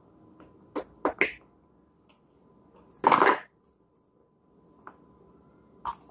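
Plastic Play-Doh tubs clicking and knocking as they are stacked and set down on a plastic high-chair tray: three quick clicks about a second in, a louder, longer clatter about three seconds in, then a couple of lighter clicks near the end.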